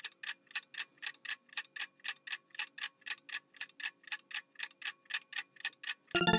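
Clock-style ticking sound effect, about four ticks a second: a quiz countdown timer running while the answer is awaited. A chiming jingle starts right at the end.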